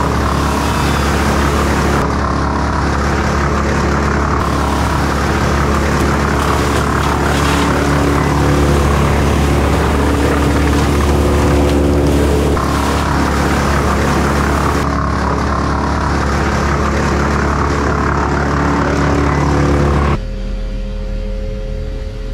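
A large engine running steadily and loudly, cutting off abruptly about twenty seconds in and leaving a quieter steady hum.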